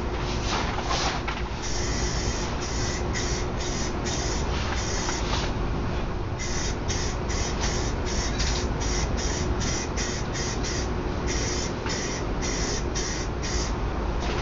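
Aerosol spray paint can spraying in many short bursts, a few longer and uneven at first, then about two quick hisses a second. This is a coat of paint being laid on a car body. A steady low rumble and hum run underneath.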